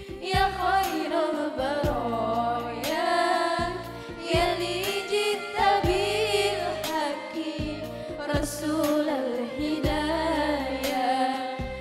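A group of girls singing a song together into microphones, backed by electronic keyboard music with low bass notes and a steady beat, all heard through a PA system.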